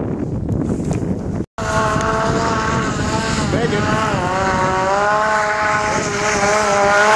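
Snowmobile engine revving hard as the sled climbs a steep snow chute, its pitch rising and falling with the throttle and dipping briefly around the middle. The engine follows a low rush of noise that cuts off about a second and a half in.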